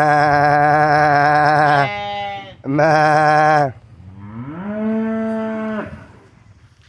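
Penned goats bleating: a long, loud, quavering bleat, a quieter one, and a second loud bleat. Then comes a lower call that rises in pitch and holds for over a second.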